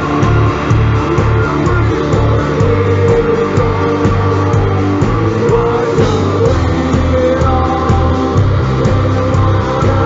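Heavy metal band playing live: lead vocals sung over distorted electric guitar, bass guitar and drums at a steady beat.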